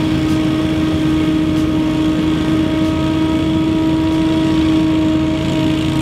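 Scag Windstorm stand-on leaf blower running steadily at a constant pitch, its engine and fan giving an unchanging whine over a low rumble.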